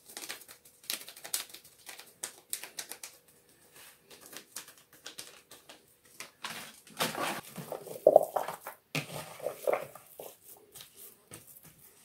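Crinkling paper sachet of sweet paprika shaken over meat, then hands mixing raw shashlik meat in a plastic bowl: irregular soft clicks and rustles, louder about seven seconds in.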